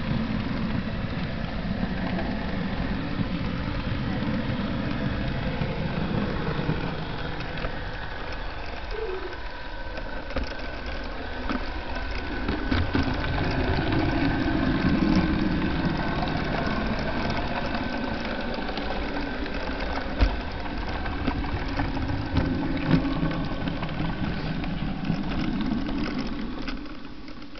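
Model train running on its track, heard from a camera riding on the train: a steady motor hum and wheel rumble with a run of small clicks and a couple of louder clacks. It fades away near the end.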